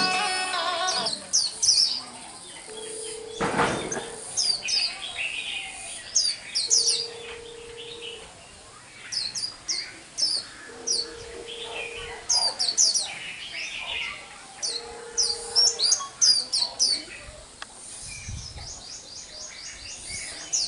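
A white-eye singing a broken, stop-start song of quick high chirps and trills, the ragged song of a newly caught bird not yet in full voice. A short steady low tone sounds four times, about every four seconds, and music fades out in the first second.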